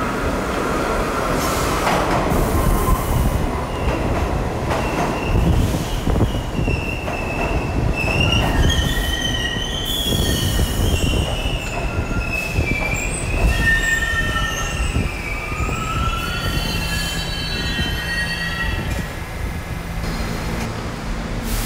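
R68 subway train pulling into the station and braking: a loud rumble of wheels on rail as the cars pass, then high-pitched squealing that wavers in pitch through the middle as the train slows. The squeal fades near the end as the train comes to a stop, leaving a steady low hum.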